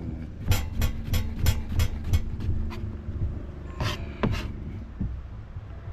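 Kitchen knife chopping potato on a plastic cutting board: a quick run of even taps, about three or four a second, for the first few seconds, then two more strikes about four seconds in.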